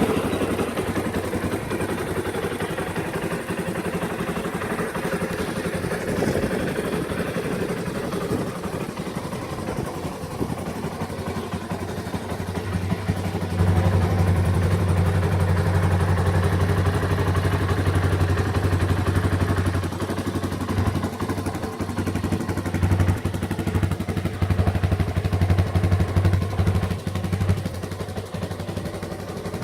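Yamaha Raptor 350R ATV's single-cylinder four-stroke engine running just after being started. About halfway through it holds a louder, steady note for several seconds, then surges unevenly near the end as it is blipped.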